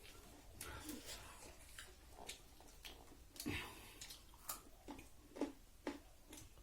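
Faint close-up eating sounds of rice and fish curry: chewing and wet mouth clicks, with scattered light clicks and taps. A slightly fuller sound comes about three and a half seconds in.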